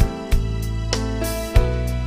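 Background music: an instrumental stretch of a gospel song between sung lines, with a steady bass, held chords and a few drum hits.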